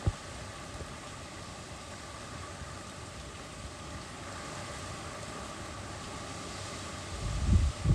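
Steady hiss of hurricane wind and rain, with low rumbling thumps that start near the end.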